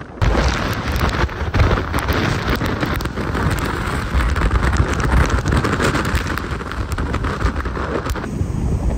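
Typhoon-force wind gusting with heavy wind-driven rain, the gusts buffeting the microphone in a deep rumble. The sound shifts abruptly about eight seconds in, the rain hiss thinning.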